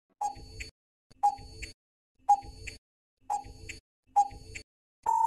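Quiz countdown-timer sound effect: five ticks, one a second. Near the end a long steady beep sounds as the time runs out.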